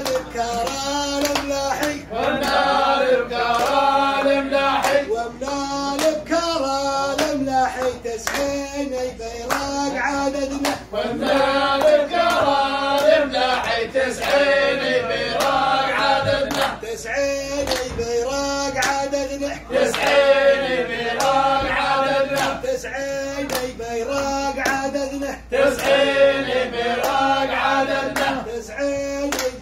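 A group of men chanting an Arabic tribal song in unison, with steady rhythmic hand clapping keeping time.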